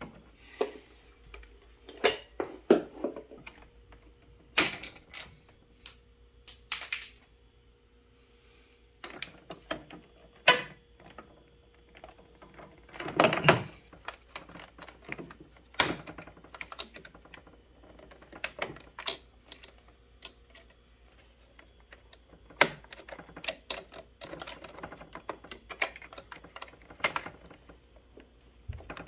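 A series of irregular sharp clicks and knocks, some single and some in quick clusters, with pauses between them.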